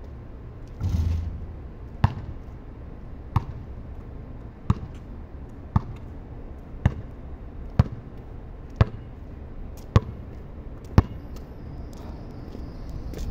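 Basketball bouncing on a concrete court: nine sharp bounces about a second apart as it is dribbled. About a second in, a louder, longer hit as the shot reaches the hoop.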